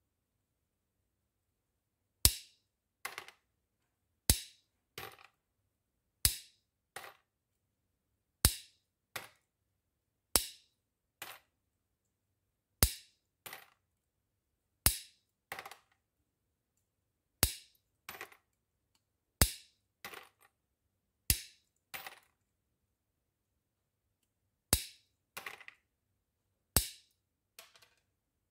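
End-cutting nippers snapping through a coiled wire, cutting chainmail rings one at a time: a sharp snap about every two seconds, each followed by one or two fainter clicks.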